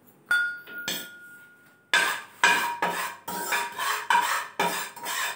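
A small steel tin clinks and rings briefly, then a steel spoon scrapes around a dry metal frying pan in repeated stirring strokes, about two a second, as asafoetida powder is dry-roasted.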